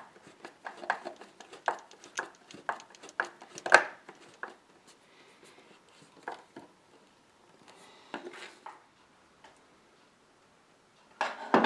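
Flat-blade screwdriver turning an old slotted wood screw by hand into the wood of an antique table: a run of irregular clicks and creaks as the blade works in the slot, thinning out after about four seconds, then a single louder clunk near the end.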